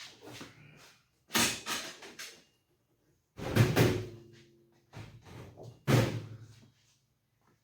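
Sheet-metal tool box being handled: three loud clanks and bangs about a second and a half, three and a half and six seconds in, the later ones leaving a short metallic ring, with lighter knocks between.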